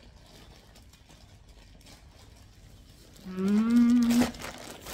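A woman's hum, an 'mmm' held for about a second on one steady pitch, starting a little past three seconds in. It ends in a sharp crinkle of plastic bagging; before it there is only faint rustling.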